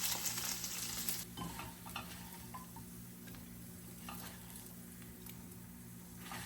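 Chicken frying in oil in a pan, sizzling loudly at first, then cutting off abruptly about a second in. A fainter sizzle follows, with a few light clicks of a utensil against the pan as the chicken is taken out.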